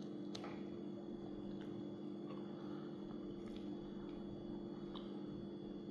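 Steady low hum holding a few fixed tones, with a handful of faint light clicks scattered through it.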